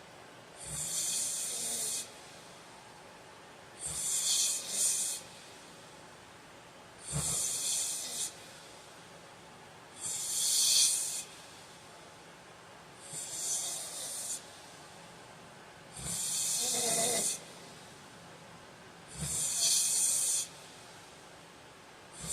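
A man snoring in his sleep, about seven breaths at a steady pace of one every three seconds. Each breath is a breathy, hissing snore lasting about a second.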